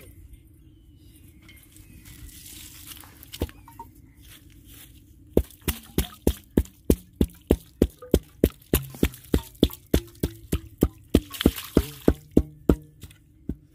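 Hand drilling of a borehole: a steel boring pipe is worked up and down in the water-flooded hole, and mud and water spurt from around its top. From about five seconds in comes a steady run of sharp wet slaps, about three a second, that stops shortly before the end.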